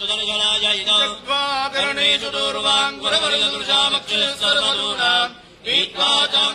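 A man's voice chanting Sanskrit mantras in a steady, continuous recitation, with a brief pause for breath about five and a half seconds in.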